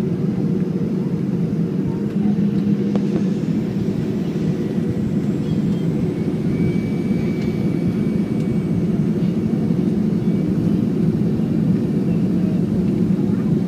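Cabin noise of a Boeing 737-500 in flight, heard from a window seat beside the wing and its CFM56 engine: a steady, even low roar, with a faint high whine coming in about six seconds in.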